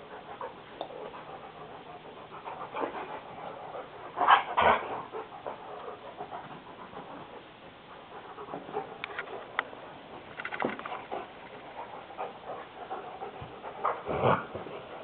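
German shepherd panting steadily, with a few louder short sounds from the dogs: the loudest about four seconds in, another about two-thirds of the way through and one near the end.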